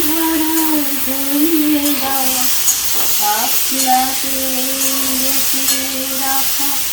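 Chopped bottle gourd sizzling in hot mustard oil in a pan as it is stirred, an even hiss throughout. Over it runs a slow tune of long held notes.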